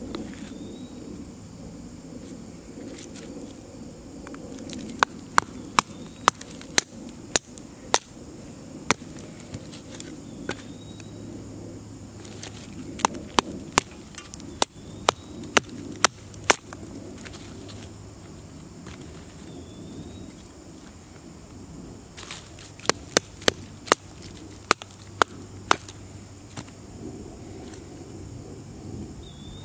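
A wooden baton striking the spine of a fixed-blade knife to split small sticks into kindling (batoning). The knocks come in three runs of sharp strokes, about two a second.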